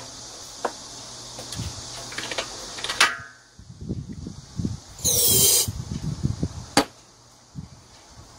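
Recoil starter of a Shindaiwa EB803 two-stroke engine blower pulled about five seconds in: a short whirring zip that falls in pitch, and the engine does not fire. Before and after it come clicks, knocks and rustling from handling the machine. The engine won't start although the spark plug sparks and the fuel filter is good, and a carburettor fault is suspected.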